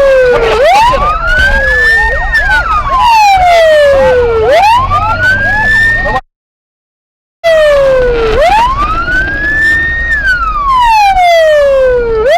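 Emergency vehicle siren wailing: a single tone that rises quickly, then falls slowly, in cycles of about four seconds, with fainter echoes of each sweep. The sound cuts out completely for about a second midway.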